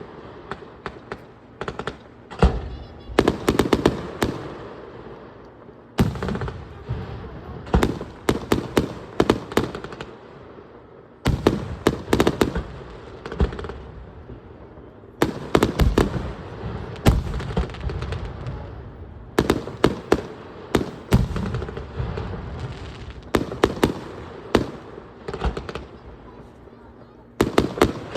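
Fireworks bursting overhead: volleys of sharp bangs and crackles in quick succession, with low booms under them and short lulls between volleys.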